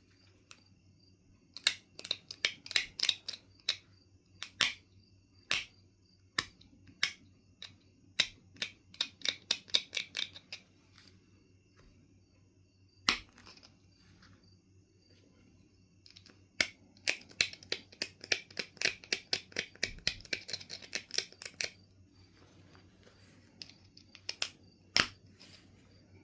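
Knife River Flint being knapped: runs of rapid small stone clicks and scrapes, with single sharp snaps now and then as flakes come off.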